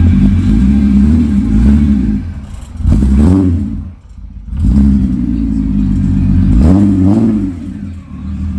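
Car engine running and revving up twice as the car is pulled away in first gear, the sound dropping away briefly in between.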